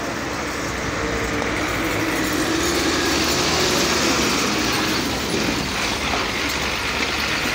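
Heavy vehicle passing close on a wet, muddy road: engine running and tyre noise on the wet surface, growing louder a couple of seconds in and easing off after about five seconds.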